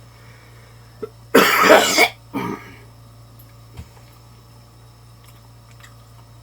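A person coughs hard once, then gives a shorter cough or throat-clear just after.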